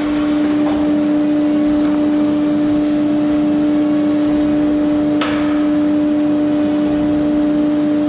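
Woodworking combination machine running unloaded with a steady, even hum at one pitch, with a faint click about three seconds in and another about five seconds in.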